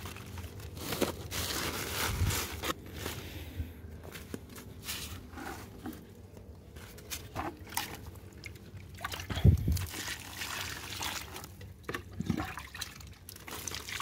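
Root-stimulant solution poured from a small metal can onto the potting mix of potted grafted apricot trees, trickling and splashing on and off, with scattered light knocks and rustles of handling.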